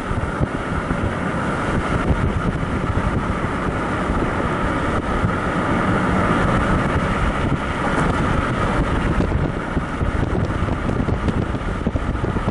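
Wind buffeting the microphone over the steady low rumble of a vehicle moving slowly along a road.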